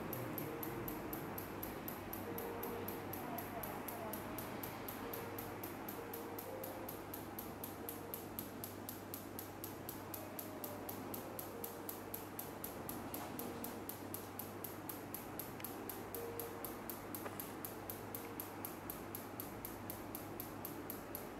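Radial shockwave therapy device in a neighbouring treatment room, ticking in an even, steady run of clicks over a low hum.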